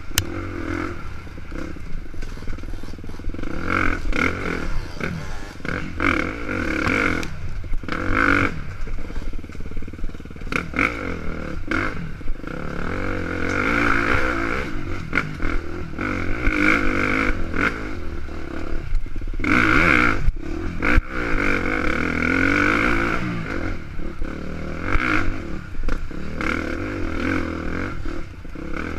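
KTM dirt bike engine revving up and down as the bike is ridden along a rough woods trail, with frequent knocks and clatter from the bike over the bumps.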